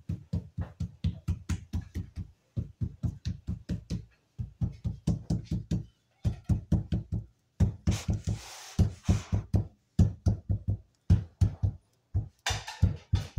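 A hand knocking on a marble stacked-stone panel, dull thumps in quick runs of about four or five a second with short pauses between them. The knocks bed the freshly glued panel into its adhesive on the wall.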